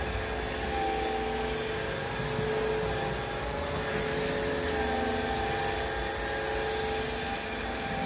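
ILIFE W90 wet/dry floor vacuum running steadily as it is pushed over a wet hardwood floor: a constant motor whine with a higher tone that comes and goes every second or two.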